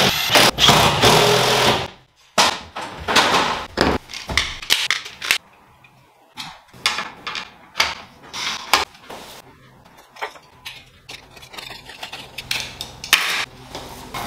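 Hand work with tools and boards: irregular knocks, clicks and scraping, with a louder, rougher scraping noise in the first two seconds. No power tool runs.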